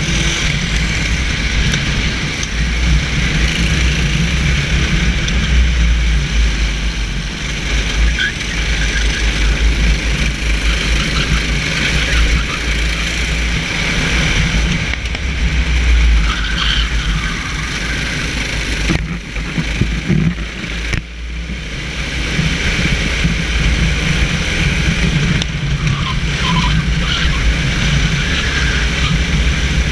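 Kart engine running under load, heard from an onboard camera on the kart during a wet race, with a heavy low rumble. The engine note drops off briefly about twenty seconds in, then picks up again.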